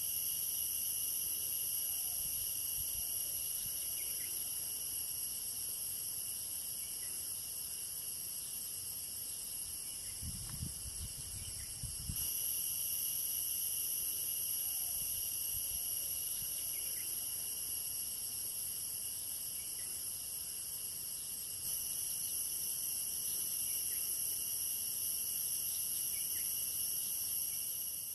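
Steady, shrill chorus of forest insects in several high-pitched layers, with some brief low rumbling near the middle.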